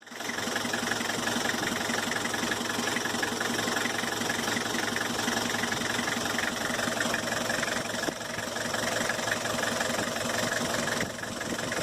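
Diesel engine of a 1999 Toyota Kijang Kapsul idling steadily.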